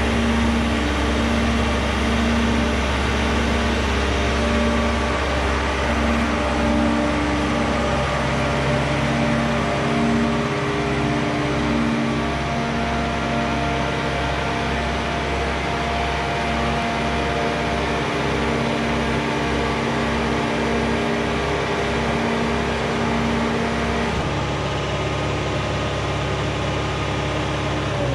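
Marina travel hoist's engine and hydraulics running steadily while it lowers a boat in its slings into the water. The pitch of the machinery shifts a few times as the levers are worked, with a change about ten seconds in and again near the end.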